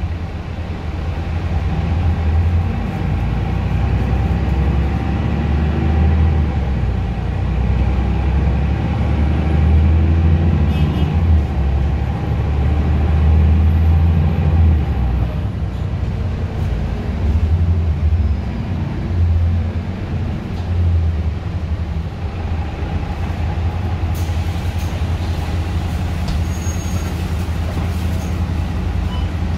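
Mercedes-Benz O530 Citaro city bus heard from inside the cabin: its diesel engine and drivetrain give a deep, loud rumble while driving. The rumble eases off about halfway as the bus slows, and a few clicks come near the end as it pulls in at a stop.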